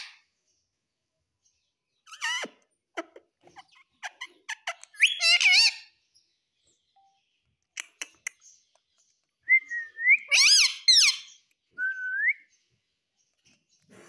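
Indian ringneck parakeet making whistled calls in several short bouts, each gliding up and down in pitch, with the longest bout about ten seconds in. Short sharp clicks come between the calls.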